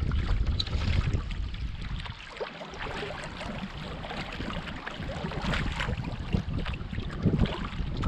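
Wind buffeting the microphone over the splash and trickle of water from canoe paddle strokes. The gusting eases about two seconds in and builds again near the end.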